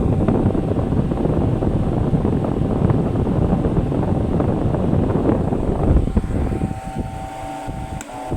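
Arno Laveo 80-watt electric fan running, its airflow buffeting the microphone with a loud, rumbling rush of air. About six and a half seconds in the rush drops off and a steady motor hum comes through.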